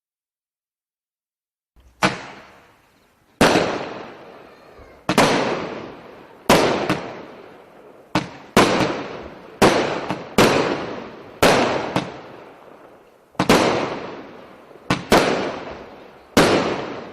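Consumer firework battery (cake) firing its shots: after about two seconds of quiet, a string of about fifteen sharp bangs, roughly one a second at uneven spacing, each trailing off before the next.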